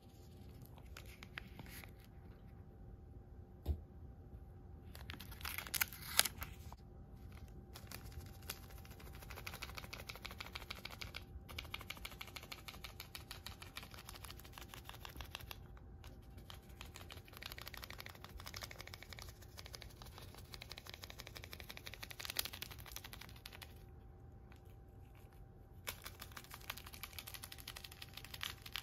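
A catnip pouch being handled and shaken over a corrugated cardboard cat scratcher: many fast little crinkles and crackles, with louder bursts about six seconds in and again a little past twenty seconds, over a faint steady hum.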